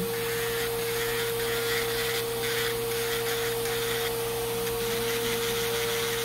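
Electric nail drill running steadily, its ball-shaped bur grinding down a toenail thickened by fungal infection: a constant motor tone with a grinding hiss over it.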